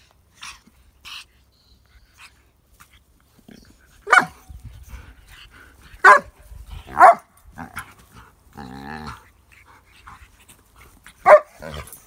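Large dog giving four short, loud play barks, with a lower, drawn-out growly call between the third and the fourth.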